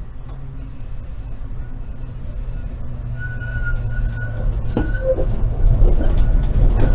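Konstal 105Na tram running on its rails, the low rumble growing steadily louder. A thin high whine comes in about three seconds in, and there are two sharp knocks, one about five seconds in and one at the end.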